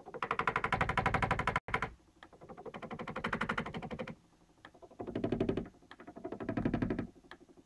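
Stepper motors of a Zen Toolworks 7x12 CNC router on a Planet CNC controller chattering in four bursts of rapid clicking: two of about two seconds, then two shorter ones. The motors run by themselves once the board is connected to the computer and cannot be stopped, a fault the owner cannot explain.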